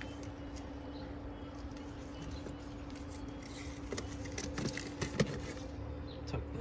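A few light metallic clinks and knocks from car parts being handled in an engine bay, mostly in the second half, over a steady low hum.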